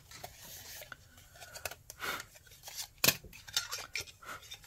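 A sheet of 800-grit abrasive paper rubbing and rustling, then a series of sharp clicks and taps as small metal tins are handled and set down on the table.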